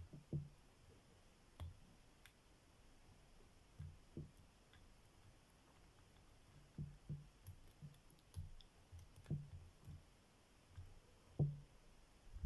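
Faint, irregular clicks and taps of a lock pick and tension tool working inside a cross lock, with soft handling bumps, more frequent in the second half.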